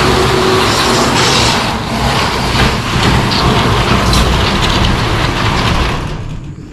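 Timber skids of a chicken coop scraping and grinding as the coop is dragged by a rope across a concrete slab and onto gravel. The loud scraping stops about six seconds in.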